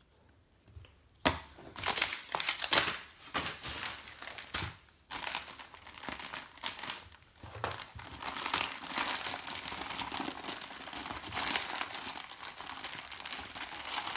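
Black plastic mailing bag crinkling as it is handled and pulled open, in irregular crackling bursts that start about a second in.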